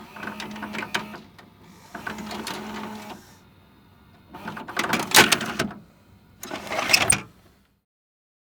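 VHS video cassette recorder's tape mechanism whirring and clicking in four short bursts, a steady motor hum under the first two, the last two louder with sharp clacks.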